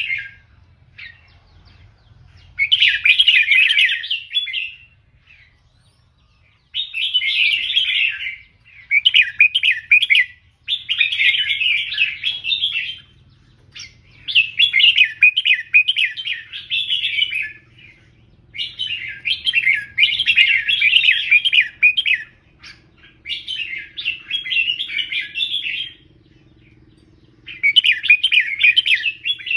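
Red-whiskered bulbul singing loud, rapid warbling phrases of a second or two each, repeated with short pauses between them, and two longer pauses, one about five seconds in and one near the end.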